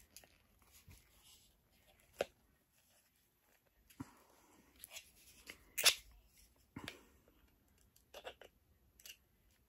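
Acrylic standee pieces handled: scattered small plastic clicks and rustles, with one sharper crackle about six seconds in.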